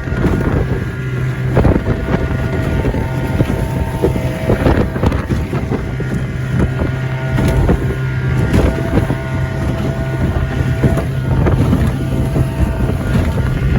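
Livingston boat's motor running steadily under way while the hull slaps and bangs against choppy waves in irregular knocks, with wind buffeting the microphone.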